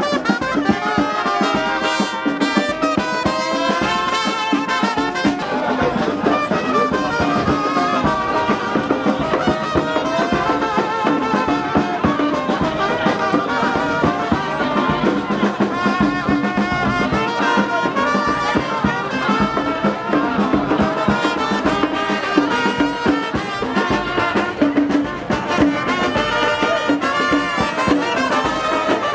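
Music with a steady beat and a melody that runs without a break.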